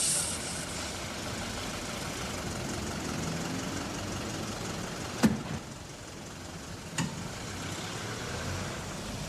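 A motor vehicle's engine running steadily, with two sharp knocks, about five and seven seconds in.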